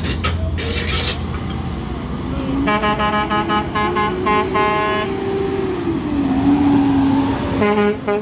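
NASCAR team haulers, diesel semi tractor-trailers, rumbling past at close range. An air horn sounds a quick series of short toots a few seconds in, with a few more toots near the end.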